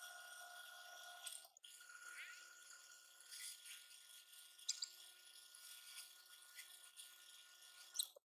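Faint sound of a homemade lathe turning a metal disc: a steady high whine with a few light ticks, broken briefly about a second and a half in.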